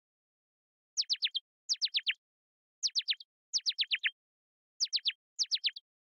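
Synthesized bird chirping from Ableton Operator, its looping pitch envelope sweeping the tone down in quick high chirps. Six short bursts of about four falling chirps each, starting about a second in.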